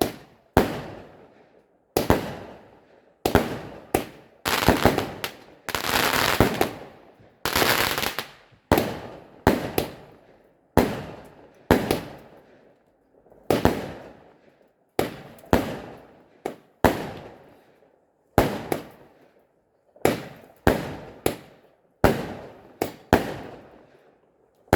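Fireworks bursting in a long run of sharp bangs, roughly one a second, each trailing off, with a denser crackling stretch early in the middle.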